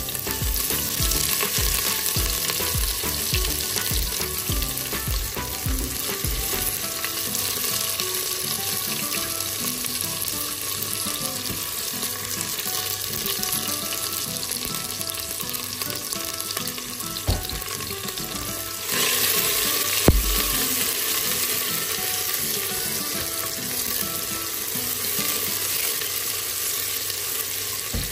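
Sliced onions sizzling in hot oil in a stainless steel pressure-cooker pot, stirred with a wooden spatula. The sizzle gets louder about two-thirds of the way through, and there are a couple of short knocks.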